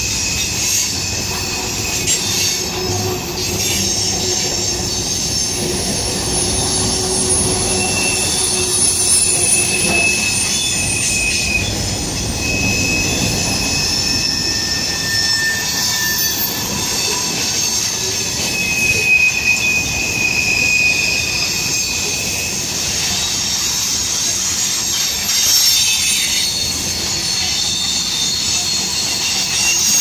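Covered hopper cars of a freight train rolling past close by: a steady rumble of steel wheels on rail, with high-pitched wheel squeal coming and going in several thin tones.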